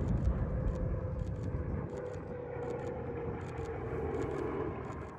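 Faint airplane engine drone over a low outdoor rumble, the whole fading away toward the end.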